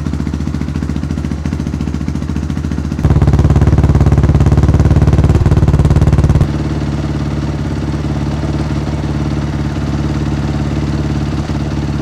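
450 cc enduro motorcycle engine idling steadily, warmed up with the radiator at about 55–73 °C during a test of the cooling-fan thermo-switch. For about three seconds in the middle it is much louder, heard right at the exhaust outlet.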